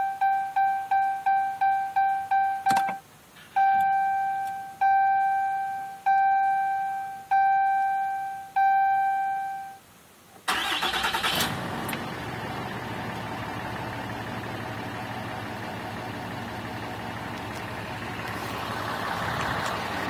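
Ram pickup's dashboard warning chime dinging, first quickly and then at a slower pace. About ten seconds in, the 6.7-litre Cummins inline-six turbo-diesel cranks, catches and settles into a steady idle, running well after a stock tune-up.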